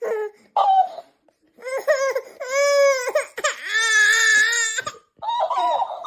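A baby crying: two short cries, then three long drawn-out wails with brief breaths between them.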